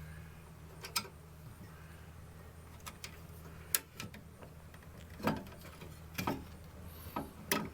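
Scattered light clicks and taps of hand tools and wire being handled during electrical wiring, about six over several seconds, over a steady low hum.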